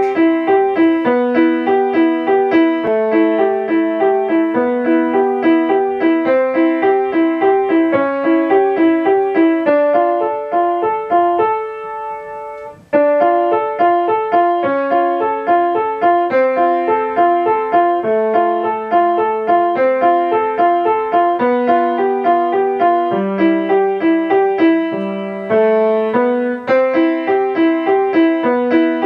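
Grand piano played: a flowing piece with a steadily repeating broken-chord pattern under a melody. Around ten seconds in the playing eases and a chord rings out and fades for a couple of seconds, then the pattern picks up again.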